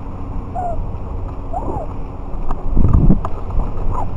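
Wind rumbling across the onboard microphone of an Estes Cherokee-E model rocket. A few short chirping calls come through in the first two seconds, and a louder cluster of low knocks and clicks comes about three seconds in.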